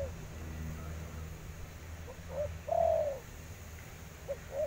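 Spotted dove cooing: a phrase of two short notes and a long falling coo about two seconds in, with the first short notes of the next phrase near the end. A steady low hum lies underneath.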